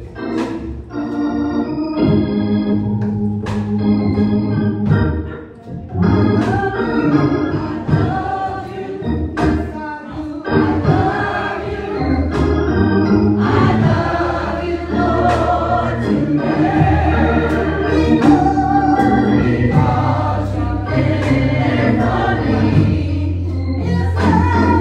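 Organ playing gospel music with held chords, voices singing along, and occasional sharp hits.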